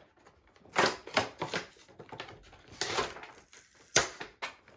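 Plastic toy packaging being handled and opened: a series of short crackles and clicks, the sharpest about four seconds in.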